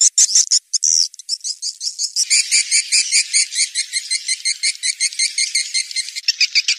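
Swiftlet call-lure track: rapid, evenly repeated high chirps of swiftlets, several chirping layers mixed together. The mix changes about one second and two seconds in, when a denser, lower layer joins, and again near the end.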